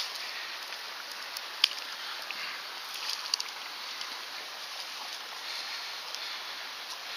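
Steady rush of running water, with a few sharp clicks and taps: one about a second and a half in and a small cluster near three seconds.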